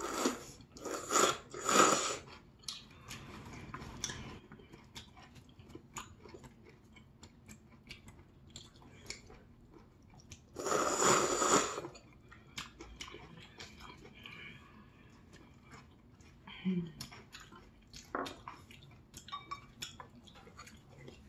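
Close-miked eating: noodles with black-bean sauce being chewed, with many small wet clicks, and two louder noisy bursts of eating sound, one at the start and one about ten seconds in.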